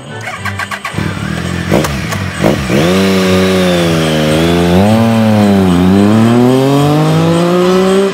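Triumph Tiger three-cylinder motorcycle engine revved twice in quick succession, then pulling away under acceleration, its pitch dipping twice before climbing steadily.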